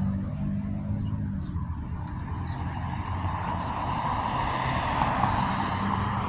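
Vehicle noise: a low engine hum that fades about a second in, then a broad rushing sound that builds toward the end.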